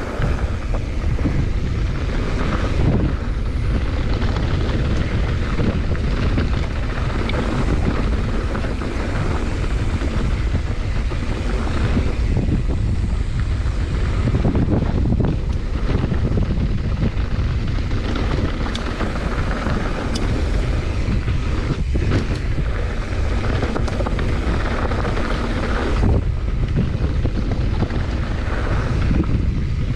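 Steady rushing wind on an action camera's microphone over the rumble of a mountain bike's tyres rolling fast down a dirt trail, with a few brief knocks from the bike.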